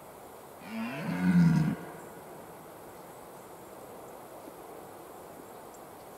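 Red deer stag roaring in the rut: one deep roar about a second long, starting under a second in, growing louder and then cutting off sharply.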